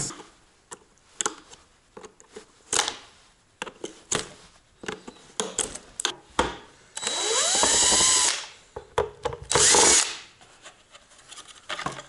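DeWalt cordless drill/driver run in two bursts, about 7 and 9.5 seconds in, the first longer; each time the motor's pitch rises as it spins up. It is driving out the screws that hold shut the case of a battery-management module. Before that come scattered clicks and knocks as the module is handled.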